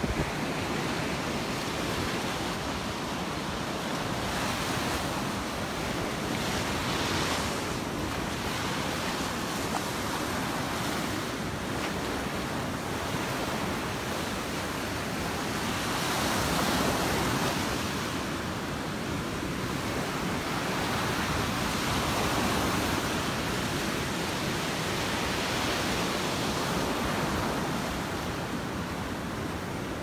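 Gulf of Mexico surf breaking in small waves and washing up the sandy shore, a continuous rushing wash that swells louder a couple of times. Wind buffets the microphone.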